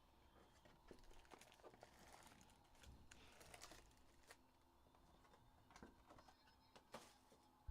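Near silence with faint scattered clicks and soft crinkling, typical of trading-card packs and cards being handled and opened.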